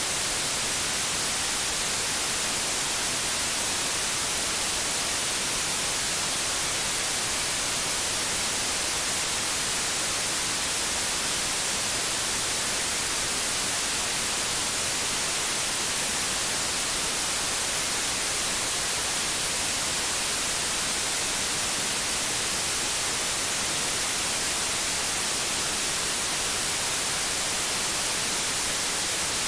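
Steady white noise: an even, unchanging hiss, brightest in the high treble.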